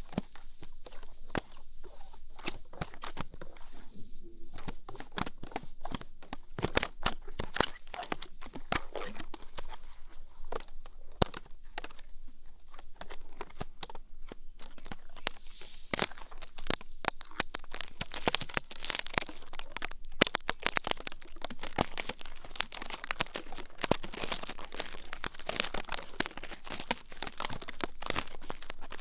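Close-up ear-cleaning ASMR: ear-cleaning tools scratching and rubbing at a microphone's ear, giving a dense run of small crackles and crunches. It grows busier and brighter about halfway through.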